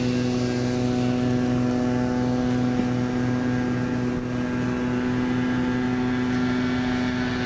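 A machine running steadily nearby, a constant low hum at one unchanging pitch.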